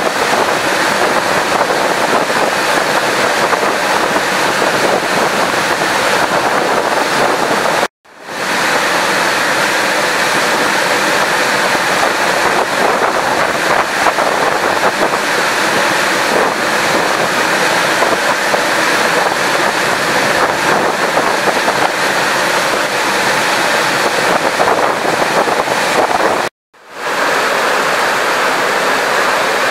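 Steady, loud rushing hiss of rain pouring onto flooded river water. It cuts out abruptly twice, about eight seconds in and near the end, and fades quickly back up each time.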